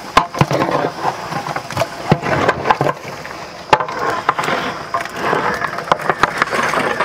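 Raw mutton pieces sliding off a steel plate and dropping into a large pot of thick masala, with irregular sharp knocks and scrapes of metal against the pot.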